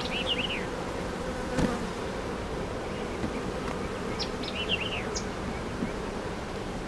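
Honey bees buzzing steadily in the air around an opened hive, the colony stirred up by the inspection.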